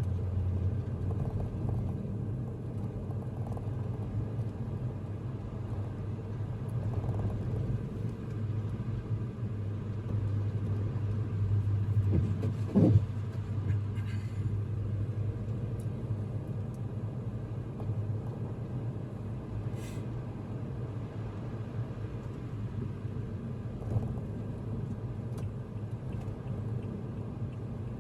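Steady low rumble of a car on the move, heard from inside the cabin: engine and road noise. About thirteen seconds in there is a brief louder sound, and a few faint clicks come later.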